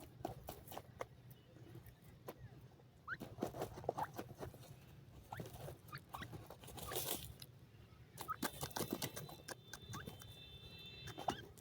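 Teetar partridges moving and pecking: a scatter of quick clicks, taps and pattering, with short high chirps here and there. A held high whistle of a few stacked tones sounds for about two seconds, two-thirds of the way through.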